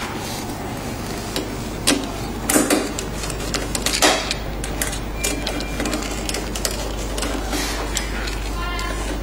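Hand screwdriver clicking and scraping on metal as screws are driven in to mount a pressure regulator on the machine's sheet-metal panel, with a few sharper knocks about two and four seconds in, over a steady low hum.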